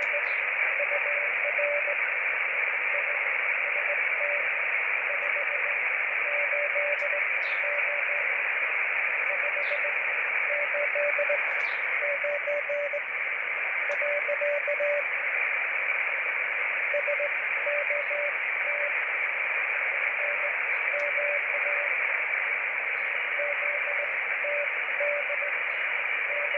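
Morse code from a 300 mW Pixie QRP transmitter on 40 metres (7.023 MHz), heard on a distant shortwave receiver: a single tone keyed on and off in groups of dots and dashes with pauses between, under steady loud band hiss. It is a weak signal arriving over a long path, readable above the noise.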